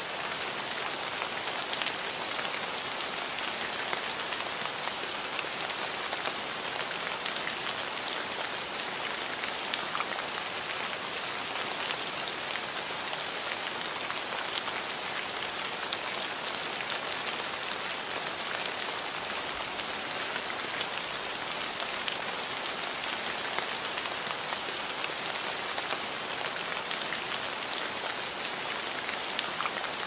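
Steady rain falling: an even hiss with a fine patter of individual drops, unchanging in strength.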